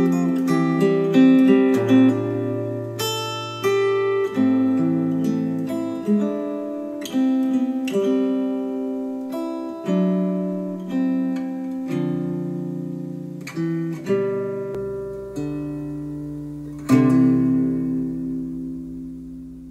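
Acoustic guitar music played back through bookshelf speakers: plucked notes and chords that ring and die away. A deep bass note comes in about fifteen seconds in, and a last chord is struck near the end and fades out.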